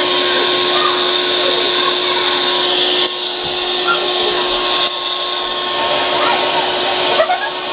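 Wet/dry shop vacuum running steadily with a constant hum, its hose sucking dirty water from a bathtub that won't drain. Its level drops a little about three seconds in and again about five seconds in.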